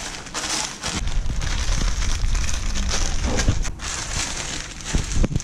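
Salt and vinegar potato chips being bashed into crumbs in a bag: the bag crinkles and crackles with a run of dull thuds.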